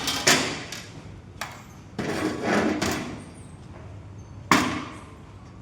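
Hand tools knocking on steel pieces: a few sharp knocks, the loudest about four and a half seconds in, with a second of clattering, scraping noise around the middle.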